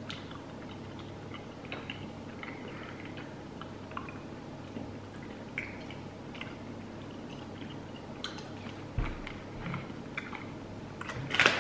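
Faint chewing and lip smacks of people eating soft gummy candy (Skittles Chewies), over a steady low room hum. Near the end a loud burst of crinkling, like a plastic candy packet being handled.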